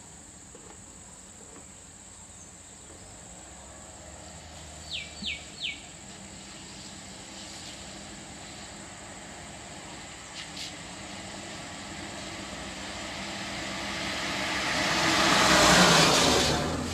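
A vehicle passing close by on a wet road: a hiss of tyres that swells over several seconds, peaks and fades near the end. Earlier, three quick falling chirps.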